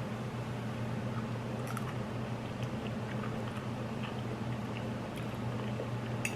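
Faint chewing of spicy ramen noodles, with a few small, wet mouth clicks here and there over a steady low hum.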